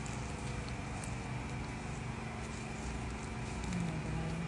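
Steady low mechanical hum from a running motor or engine, with a brief higher tone near the end.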